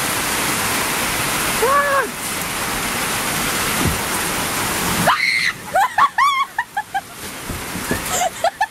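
Heavy rain pouring steadily, with one short voice call about two seconds in. About five seconds in the rain sound drops off sharply, and a run of short voice sounds follows.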